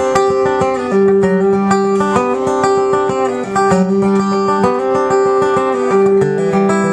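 Solo acoustic guitar playing an instrumental intro, picking a run of notes over one high string left ringing throughout.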